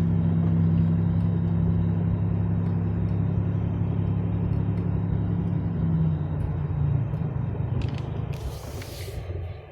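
Steady drone of a car's engine and tyre noise heard from inside the cabin while driving. The engine hum eases about six seconds in, and a brief hiss comes near the end.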